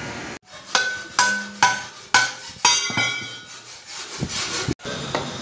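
Hammer blows on the steel rim of a rice-harvester wheel, ringing metallically, about two strikes a second, followed near the end by two duller, deeper knocks.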